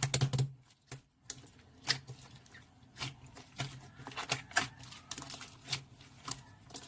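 Slime being played with, making a run of irregular small clicks and pops.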